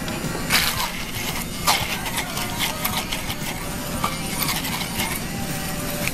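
Hand-held immersion blender running in a glass measuring jug, puréeing pitted black olives in extra virgin olive oil: a steady motor hum with irregular sharp clacks as the blender head is worked around the jug.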